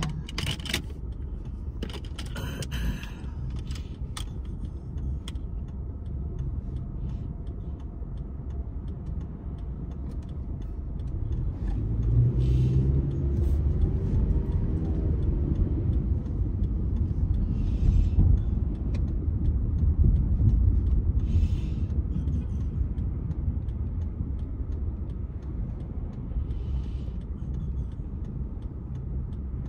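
Car road noise heard from inside a moving car: a steady low rumble of engine and tyres. It swells for several seconds in the middle, then eases back.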